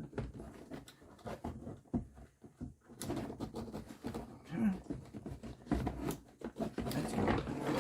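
Irregular clicks, knocks and rattles of plastic door-trim parts being handled and pried loose, growing busier toward the end.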